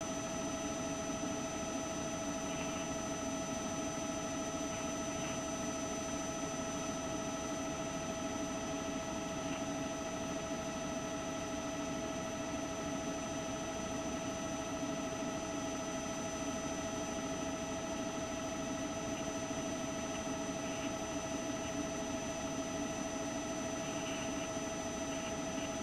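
Helicopter engine running steadily: an even hiss with a constant whine.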